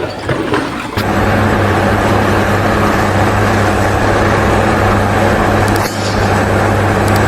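Steady, loud mechanical running noise with a constant low hum, starting about a second in and dipping briefly near the end.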